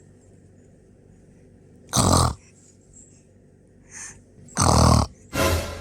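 A woman snoring in her sleep: two loud, short snores, one about two seconds in and one about four and a half seconds in, with a faint one just before the second. A breathy hiss of breath follows right after the second snore.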